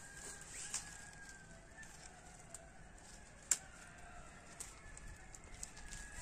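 Small wood fire crackling with scattered sharp pops, the loudest about three and a half seconds in.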